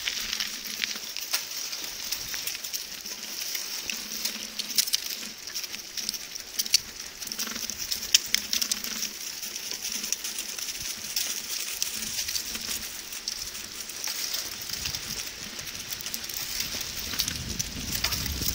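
Steady hiss of a bicycle riding along pavement, with many irregular clicks and rattles over it.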